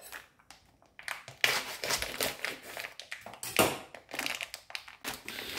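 Thin plastic bag crinkling on and off as a pack of dried tofu is handled and pulled out of it, starting about a second in.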